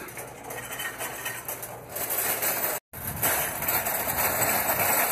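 Loud metal shopping cart rattling as it is pushed, first over a store floor, then louder over parking-lot pavement after a brief break near the middle.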